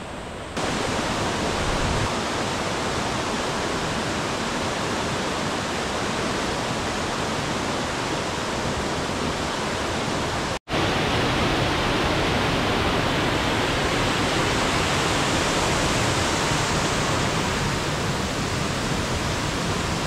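Mountain stream rushing over rocks, a steady full sound of running water. It cuts off for an instant about halfway through and comes back slightly louder.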